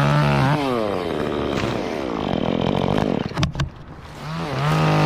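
Stihl chainsaw being throttled up and released several times, its engine pitch rising, holding and falling. It drops off briefly about three and a half seconds in, then revs up again and holds near the end.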